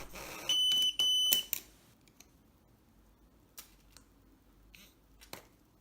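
Two short electronic beeps from a Pandora Multibrand 605 key-fob tester, each a steady high tone about half a second long, back to back, followed by a few faint clicks.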